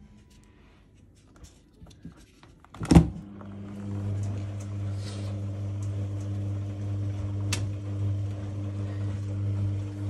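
A sharp click-knock about three seconds in, the dishwasher door being unlatched and opened, followed by a steady low electrical hum that lasts to the end.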